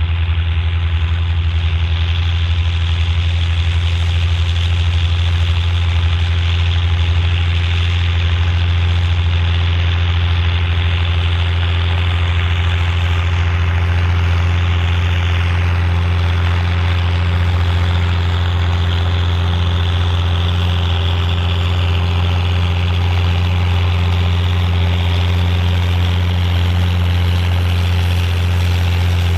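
Volvo BM 810 Turbo tractor's turbocharged diesel engine running steadily at an even pitch while pulling a six-furrow plough.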